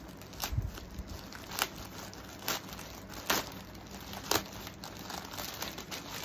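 White plastic courier mailer crinkling and crackling as it is pulled open by hand, with about five sharp crackles roughly a second apart.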